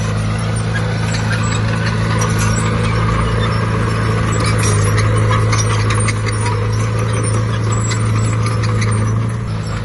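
Heavy diesel earthmoving machine's engine running steadily under load, with scattered metallic clicks and clanks over it; it eases off a little near the end.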